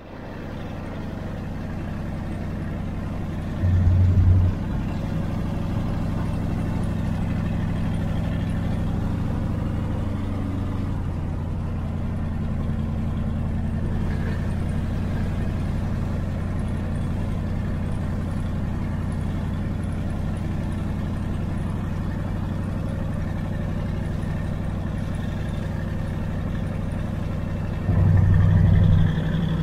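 A motor vehicle's engine running steadily at idle, with a brief louder surge about four seconds in and another near the end.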